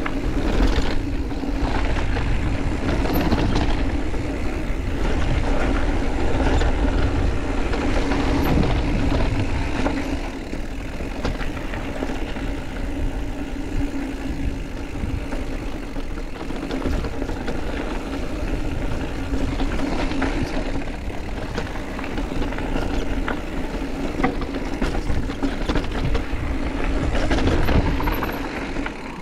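Mountain bike riding down a trail: a steady low rumble of wind and tyres, with many small rattles and clicks from the bike throughout.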